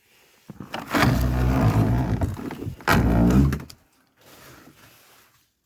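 Wooden dugout door being pulled open: a long loud scraping creak with a knock about a second in and another near three seconds, followed by fainter scraping.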